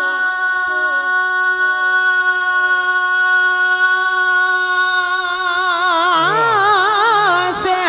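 A male reciter of a devotional Urdu manqabat sings one long held note into a microphone. It stays steady for about five seconds, then wavers and bends into an ornamented run near the end.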